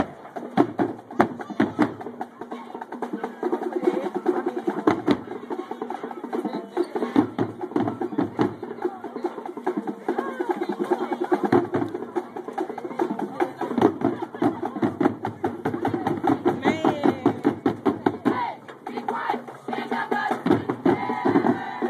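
High school marching band playing in the stands: drums strike a busy rhythm under brass, with voices mixed in.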